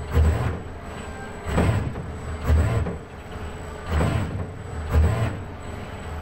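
ABB industrial robot arm making rapid painting strokes, its motors and gearboxes running loudly in repeated swells, about five in six seconds, as the arm accelerates and stops with each move.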